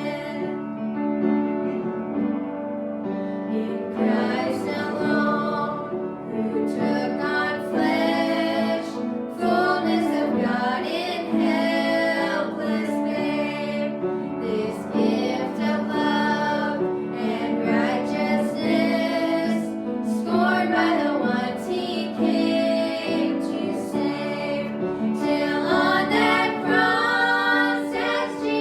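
Hymn sung by female voices over a piano or keyboard accompaniment with a steady sustained chord underneath.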